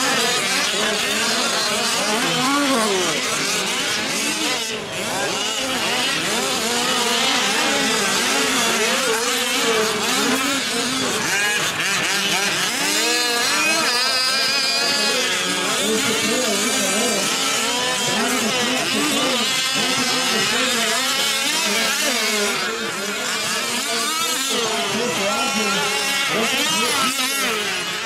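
Several 1/5-scale RC off-road trucks racing together, their small two-stroke gasoline engines revving up and down, overlapping, with pitches constantly rising and falling.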